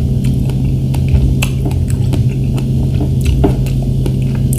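Metal fork clicking and scraping on a plate as a strawberry is speared and picked up, with light mouth sounds, over a loud steady low hum.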